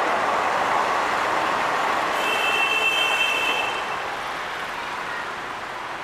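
Train running along the track, a steady rushing noise of wheels on rail, with a high wheel squeal about two seconds in that lasts about a second and a half; the noise then fades as the train draws away.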